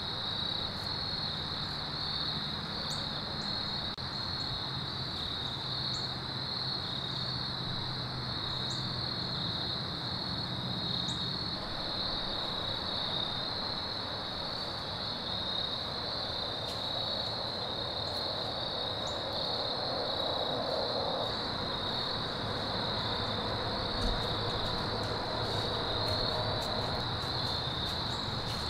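Steady, high-pitched chorus of insects, one unbroken drone that does not let up.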